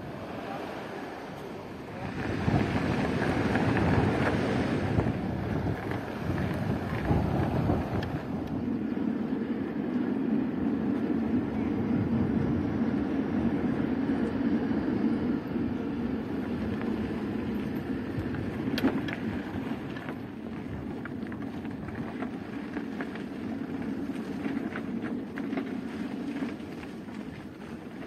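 Wind blowing on the microphone, strongest a few seconds in, over a steady low rumble that lasts until near the end.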